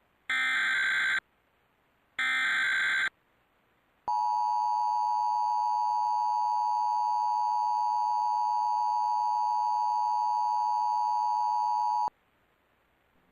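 Emergency Alert System tones: two short, harsh digital data bursts of the SAME header, about a second each, then the EAS two-tone attention signal (853 and 960 Hz sounded together), a steady dual-tone held about eight seconds that cuts off abruptly. The sequence signals the start of an emergency alert broadcast.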